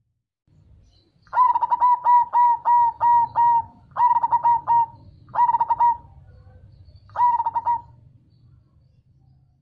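Black cemani zebra dove (perkutut) cooing: a quick run of about seven short ringing notes, then three shorter phrases with pauses between them.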